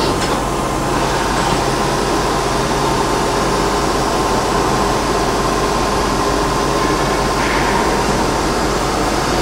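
Steady whir and low hum of a powered-up CNC Swiss-type lathe heard at its open electrical cabinet: cooling fans and electrical hum, with a few steady low tones under an even whir.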